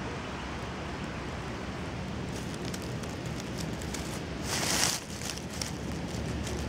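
Dry fallen chestnut leaves rustling and crackling, with one louder rustle about four and a half seconds in, over a steady low outdoor rumble.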